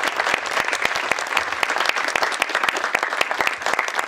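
A small audience clapping steadily, many hand claps overlapping.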